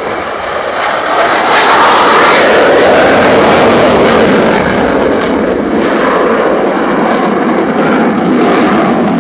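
Italian Air Force Panavia Tornado's twin RB199 turbofan engines running in afterburner as the jet climbs away in a pass. Loud, dense jet noise swells over the first second or two and then holds steady.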